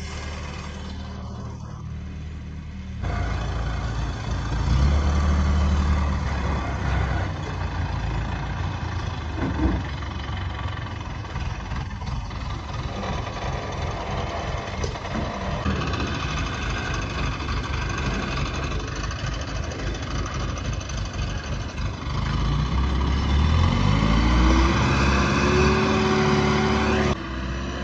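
An engine running steadily. About 22 s in it rises in pitch and holds at the higher speed, then drops off just before the end.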